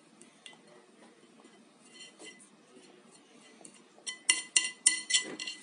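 A utensil clinking and tapping against a ceramic plate as paint and glitter are stirred in it: faint scraping, then about six quick ringing clinks near the end.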